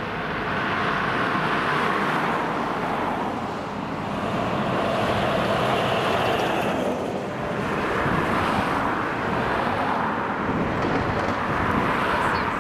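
Road traffic passing close by: a tipper lorry and cars, their engine and tyre noise swelling and easing in waves with a short lull about seven seconds in.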